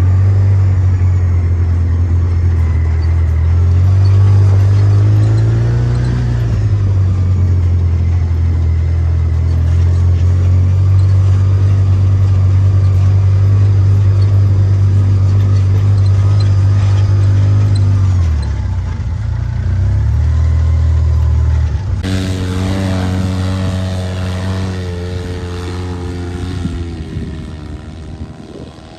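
A motor vehicle's engine running steadily, its pitch rising and falling now and then. About 22 seconds in the sound changes to a higher, more tonal drone that fades out near the end.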